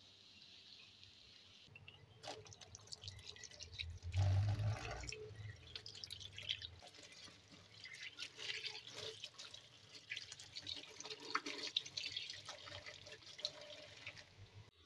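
Tap water splashing and dripping onto gourds in a steel bowl as a hand rubs and rinses them, in irregular splashes starting about two seconds in.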